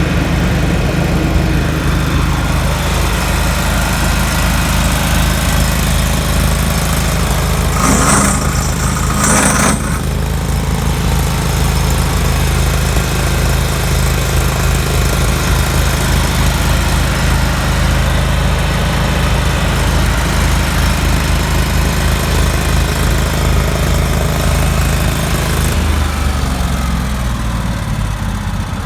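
Cimline PCR-25 pavement router's Kohler 25 hp gas engine running steadily. About eight seconds in, two brief high hisses sound over it, and near the end the engine slows, its pitch stepping down.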